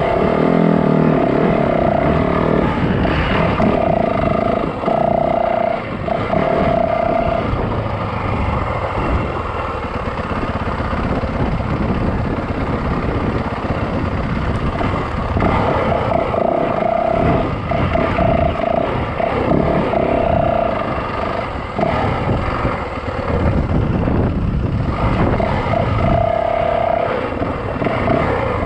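Yamaha dirt bike engine running while riding a trail, with rough wind and riding noise on the microphone and a steady engine note that comes and goes.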